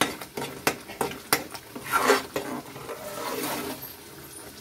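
Metal spatula stirring thick, creamy gravy in an aluminium pan, scraping and knocking irregularly against the pan a few times a second. The stirring is kept up so the added cream does not split.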